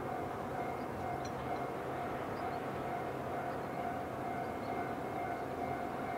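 Distant DD16 diesel locomotive approaching, its engine a steady drone with a held hum.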